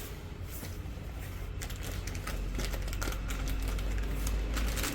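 Unboxing handling noise from a phone cooling fan's packaging: irregular light clicks and taps with rustling as the box and parts are handled.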